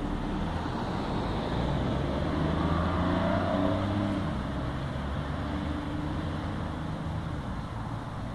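A motor vehicle driving past, its engine noise swelling to loudest about three seconds in, then slowly fading.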